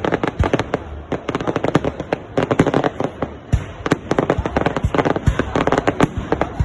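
Fireworks salute: a dense, fast run of sharp cracks and pops from many bursting shells, mixed with a few deeper booms.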